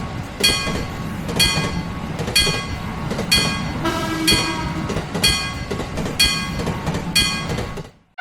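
A train running with a steady rumble while a bell strikes about once a second, eight times in all. A brief horn tone sounds near the middle, and the sound fades out just before the end.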